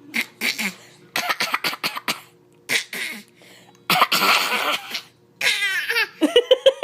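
A person fake-coughing: a run of short, forced coughs, then a longer raspy cough about four seconds in. Near the end come wavering, pitched vocal sounds.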